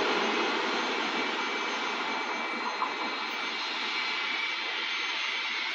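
Works train of D145 diesel locomotives and catenary-maintenance vehicles running away along the track: a steady engine and wheel noise that slowly fades.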